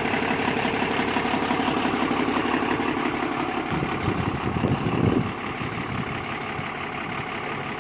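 Tata tipper truck's diesel engine idling steadily. A little after five seconds in the sound changes and turns quieter, and the engine keeps running at the lower level.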